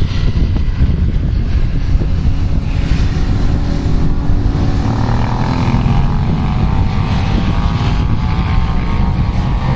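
Engines of several sport motorcycles at speed on a race track, with several engine notes rising together from about halfway through as the pack accelerates. Wind rumbles on the microphone underneath.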